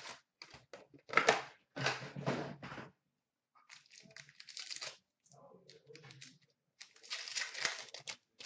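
Hockey card pack wrappers being torn open and crinkled, in several bursts of rustling, the loudest about a second in and again near the end.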